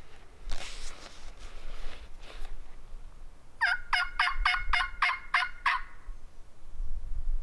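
A Rio Grande wild turkey gobbler gobbling: one fast rattling run of about nine notes, about four a second, lasting some two seconds. A brief rustling noise comes before it, near the start.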